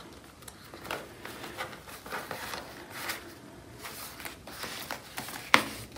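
Paper dollar bills and a plastic cash envelope rustling as they are handled and slid into a ring binder, in irregular short rustles and ticks, with one sharp click near the end.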